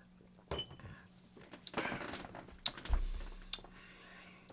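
A person sipping beer: short mouth clicks and a noisy slurping stretch, with a brief dull thump about three seconds in.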